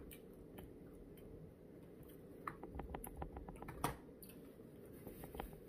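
Quiet eating sounds: a quick run of small clicks a little past halfway, then a sharper click, with a few more light clicks near the end, over a low steady hum.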